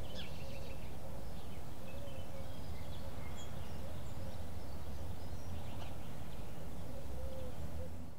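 Outdoor ambience: a steady low rumble with faint bird chirps scattered through it, fading out at the end.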